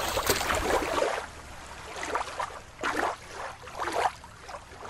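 Shallow river water lapping and splashing at the shoreline. About a second in the sound changes abruptly to quieter gurgling water with scattered short bubbling blips.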